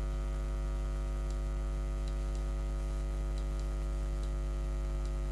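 Steady low electrical mains hum, buzzy with overtones, carried on the recording, with a few faint clicks scattered through.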